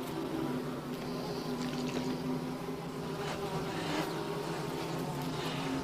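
A steady low buzzing hum with a few faint clicks, and no creature call.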